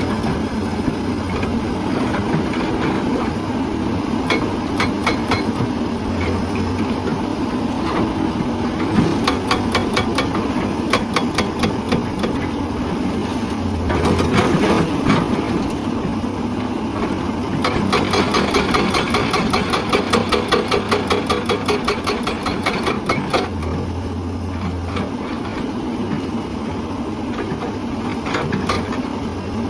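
Hydraulic breaker on a Hyundai excavator hammering rock: rapid, evenly spaced blows in several long bursts, over the excavator's engine running steadily.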